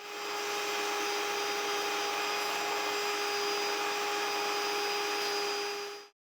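A small motor-driven tool running steadily: a hiss with a steady whine over it, unchanging in speed, that stops abruptly near the end.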